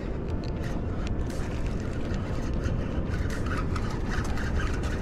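Steady low rumble of wind buffeting the microphone, with a few light clicks.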